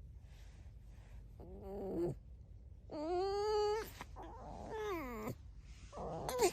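Pet red fox squeaking: four drawn-out, whiny squeaky calls, each under a second long, with pauses between. Several fall in pitch at their ends.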